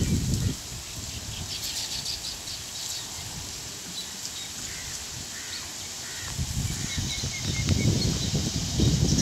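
Many small birds chirping around a colony of hanging woven weaver-bird nests: short, high, scattered chirps. A low rumbling noise on the microphone is there at the start and swells again from about six seconds in, and it is the loudest sound near the end.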